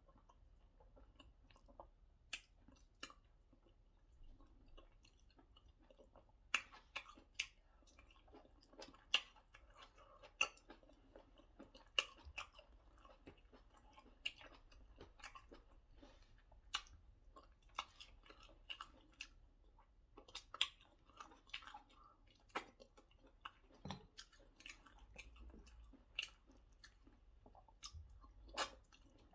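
A person chewing a soft, sticky swallow (white starch) with egusi soup, close to the microphone: faint, wet mouth sounds with sharp smacking clicks every second or so.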